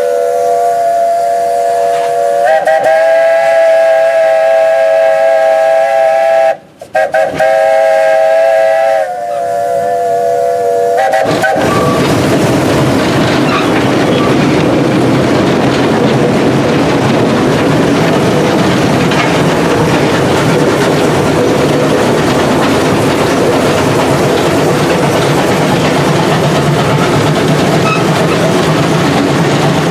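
Class 19D steam locomotive's whistle blown from the cab in one long sounding of about eleven seconds, several notes at once, shifting in pitch twice and broken briefly near the middle. After it stops, the steady noise of the locomotive running fills the cab.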